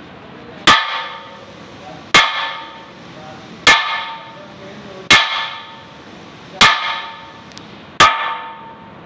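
Six hammer blows on the hub of an ammonia compressor's large spoked flywheel, about one every second and a half, each ringing out briefly with a metallic clang: the wheel is being knocked loose to pull it off the shaft.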